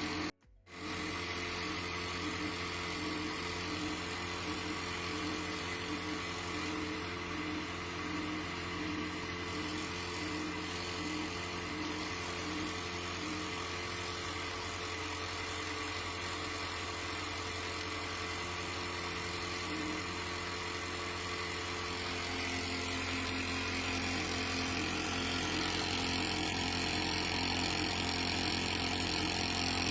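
Pegasus W500 three-needle coverstitch industrial sewing machine running with a steady mechanical hum. The sound drops out briefly near the start, then grows slightly louder and brighter about two-thirds of the way through.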